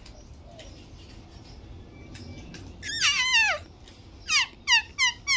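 A cat meowing: one long meow falling in pitch about three seconds in, then four short, high mews in quick succession.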